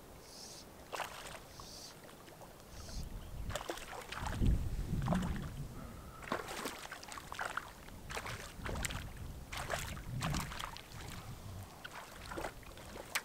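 Irregular water splashing in a shallow lake edge as a hooked grayling thrashes at the surface and is brought in, with a few heavier splashes around the middle from wading and the fish's struggle as it is netted.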